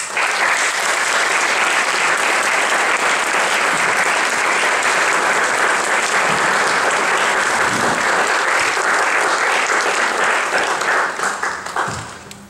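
Audience applauding. The clapping starts all at once and dies away near the end.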